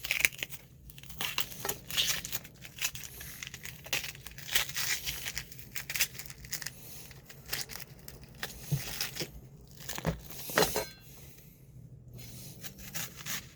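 An onion being prepared with a kitchen knife: irregular crisp tearing and crackling strokes as it is cut and its papery skin is pulled away.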